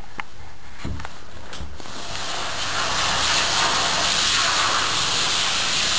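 Handheld shower head spraying water onto a long-haired dog in a bathtub to rinse her. The steady hiss of the spray starts about two seconds in, after a few faint knocks.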